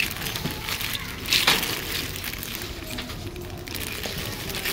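Clear plastic bag of diecast toy cars being handled and turned in the hand, the plastic crinkling and crackling, with a louder crinkle about a second and a half in.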